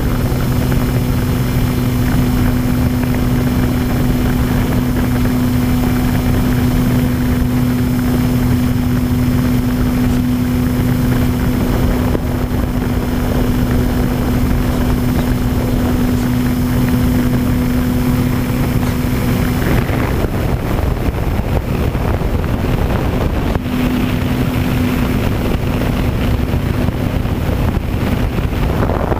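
Electric motor and propeller of a radio-controlled model plane running with a steady hum, under a rush of wind over the microphone. About two-thirds through, the motor tone drops away and leaves mostly wind noise, then briefly comes back a few seconds later.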